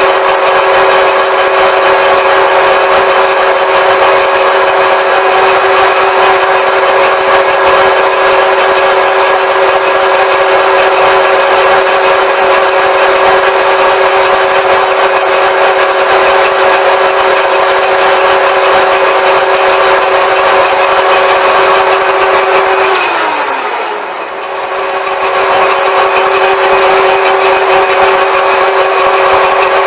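IT-1M metal lathe running steadily with a steady whine. About three-quarters of the way through there is a click, the pitch falls and the sound dips, then it comes back to the same steady running.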